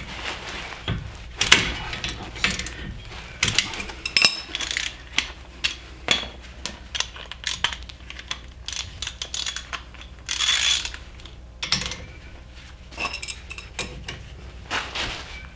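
Ratchet wrench with a 14 mm socket clicking in irregular runs of metallic ticks as the second brake caliper bolt is worked loose, with a brief scraping rasp a little past the middle.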